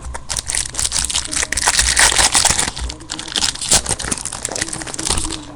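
Crinkling and crackling of Finest baseball cards being peeled apart where they have stuck together, a dense run of small crackles.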